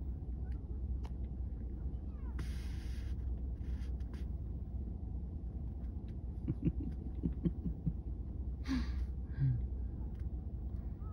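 A steady low rumble, with a brief rustle about two and a half seconds in and a few short faint sounds later on.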